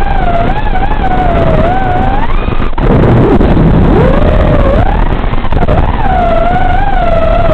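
A racing quadcopter's Emax RS2205 2600kv brushless motors and propellers whining, heard over the analog FPV video link with a rough hiss underneath. The pitch wavers with the throttle, drops sharply about three seconds in as the throttle is chopped, then sweeps back up as power comes on again.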